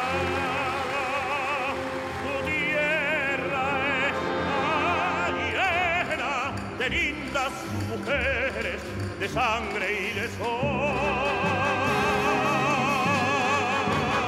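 Male opera singer singing with wide vibrato, accompanied by a live orchestra with strings.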